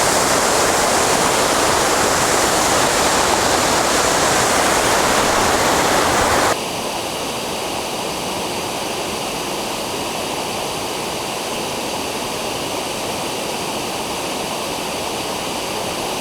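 Dzhurin waterfall: a steady rush of falling water. About six and a half seconds in it cuts abruptly to a quieter, thinner rush of the same water.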